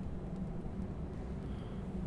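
Steady low background rumble with a faint hum, no instrument playing.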